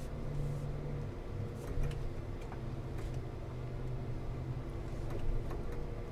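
GMC Sierra pickup truck's engine running steadily at low, even revs, with a few faint ticks.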